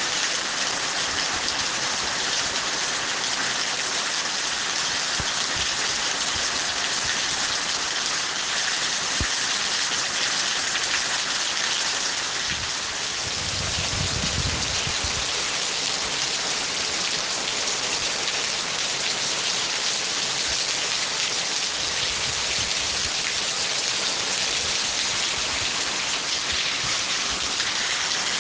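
Steady heavy rain pouring down, a dense even hiss, with a brief low rumble about halfway through.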